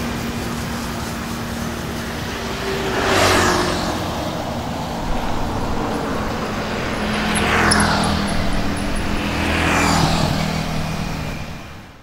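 Small portable electric washer pump running steadily with a low hum while its hose sprays water, with road traffic passing three times as rising-and-falling rushes. The sound cuts off abruptly at the end.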